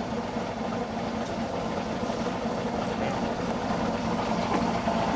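A steady mechanical hum, as of a motor running at an even speed, with a couple of faint clicks.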